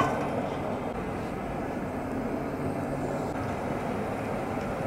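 Steady roar of a gas burner firing under a large cooking pot, with one metal ladle clink against the pot at the very start.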